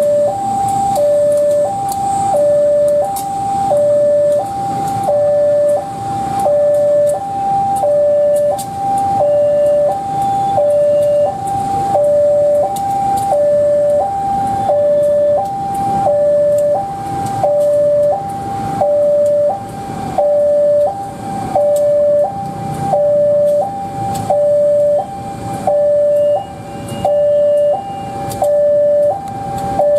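Railway level-crossing warning alarm sounding a steady two-note signal, a higher and a lower tone alternating evenly, over the rumble and wheel clatter of a passing train led by two CC203 diesel-electric locomotives.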